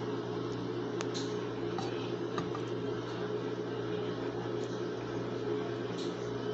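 Steady mechanical hum of a kitchen motor, with a few light knocks about 1, 2.5 and 6 seconds in as a wooden spoon stirs pork stew in an aluminium pressure-cooker pot.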